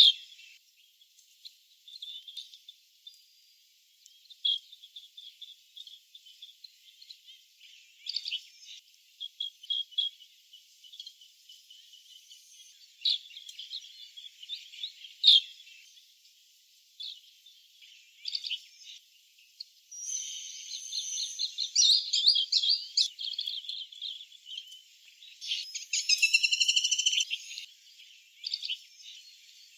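Asian green bee-eaters calling: repeated high chirps and short trills, with a louder, rapid trilling bout about two-thirds of the way in and another near the end.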